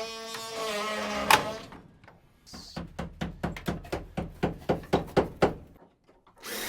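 A steady pitched tone ending in one sharp loud knock, then a run of about a dozen even knocks, roughly three a second.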